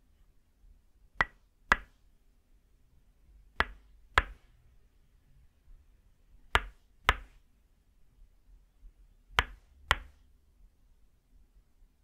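Tok sen wooden mallet striking a wooden stake held against the back: sharp wooden knocks in pairs, two quick strikes about half a second apart. The pair repeats four times at an even, unhurried pace.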